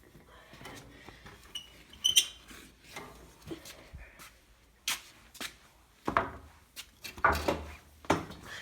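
Scattered knocks and clatter of a step ladder being fetched and handled, with a brief ringing metallic clink about two seconds in and a run of louder thumps near the end.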